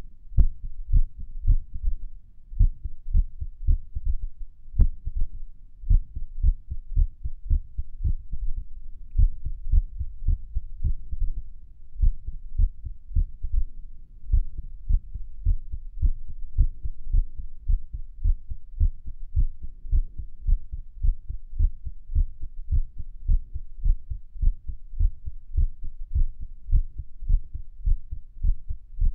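A human heartbeat recorded at Erb's point on the chest: a steady run of low lub-dub thuds, which the uploader calls irregular. One faint sharp click comes about five seconds in.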